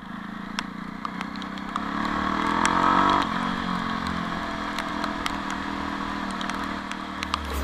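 Jawa 42 motorcycle's single-cylinder engine running under way: the engine note climbs for about two seconds, drops abruptly about three seconds in, then holds steady. Scattered sharp ticks run through it.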